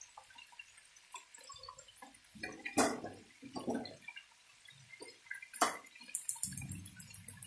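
Chicken and potatoes simmering in paprika sauce, with small bubbles popping and ticking. Two sharp knocks come about three and six seconds in.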